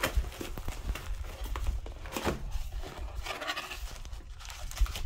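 Rustling and crinkling of bubble wrap, plastic and cardboard packaging being handled as a product box is lifted out and opened, with scattered light knocks and clicks.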